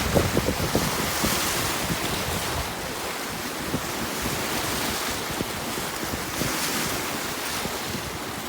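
Waves of lake surf washing onto the shore, the hiss swelling twice as waves come in, with wind buffeting the microphone.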